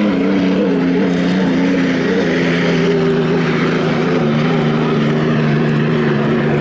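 Unlimited racing hydroplanes running past at speed, their turbine engines making a loud, steady drone whose pitch falls slowly as the boats go by.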